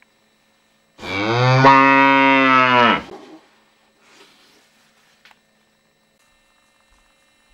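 Cow mooing: one long, low call of about two seconds, starting about a second in.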